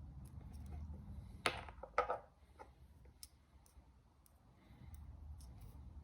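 Small clicks and clinks from handling spark plugs and multimeter probes, the two sharpest about one and a half and two seconds in, over a faint low hum.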